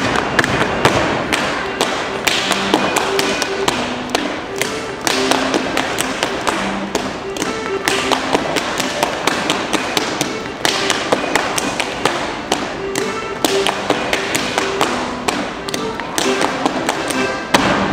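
Schuhplattler dancers' rapid rhythmic slaps on thighs, knees and shoe soles, with hand claps and stamps on the dance floor, over dance music playing a steady melody.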